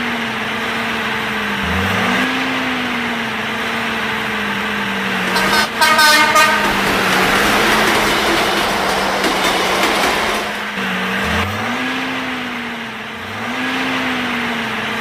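Tractor engine sound running steadily, its pitch dipping and recovering every few seconds, with a short horn toot about six seconds in.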